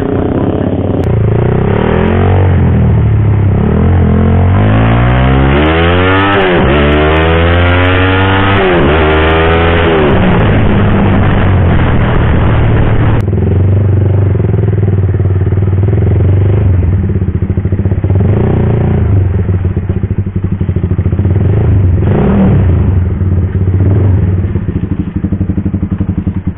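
Suzuki Satria FU motorcycle engine, a four-stroke single tuned up to 200cc, heard from the rider's seat. Its pitch rises and falls several times as it is revved up and eased off, then it runs at lower, steadier revs.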